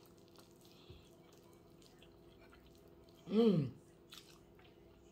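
Small wet mouth clicks and smacks from eating rice and beans by hand. About three and a half seconds in comes a short hummed "mmm" of enjoyment that rises and falls in pitch.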